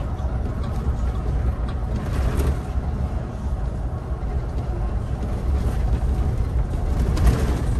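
Steady low rumble of a Solaris Urbino 18 IV articulated city bus running, heard from inside the bus.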